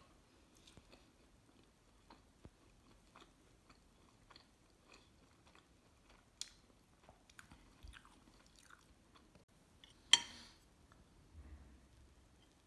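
Faint chewing and small mouth smacks of someone eating soft French toast with cream, with light clicks of cutlery. About ten seconds in, cutlery strikes the plate once in a sharp clink with a short ring.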